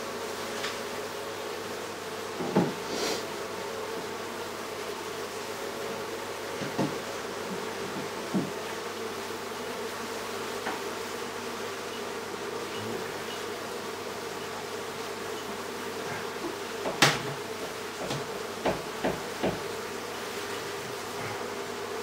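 Honeybee colony buzzing steadily in an opened wall cavity as its hive is taken apart. A few sharp knocks break through the hum, the loudest about two-thirds of the way in, followed by a quick run of taps.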